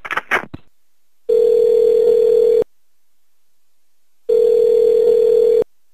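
Telephone ringback tone heard down the calling line: two steady, identical rings of about a second and a half each, with a pause of about a second and a half between them. The call is ringing through and has not yet been answered.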